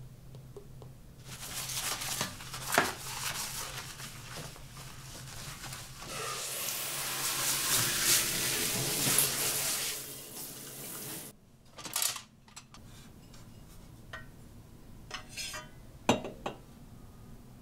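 A plastic dish brush handled at a ceramic washbasin with scrapes and clicks, then tap water running steadily into the basin for a few seconds as the loudest sound. Near the end, a few sharp clacks as a plastic cutlery drainer is set down on a countertop.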